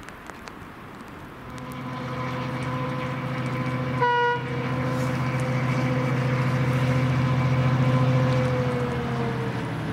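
Irish Rail 071 Class diesel locomotive approaching. Its engine drone rises steadily and dips slightly in pitch near the end, and a short horn toot sounds about four seconds in.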